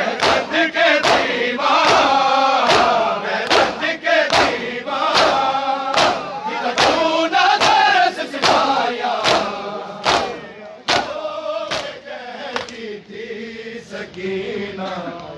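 A large crowd of men chanting a noha together while beating their bare chests in unison (matam): loud, sharp slaps in a steady rhythm of about two a second over the massed voices. Near the end the slaps weaken and the chanting grows quieter.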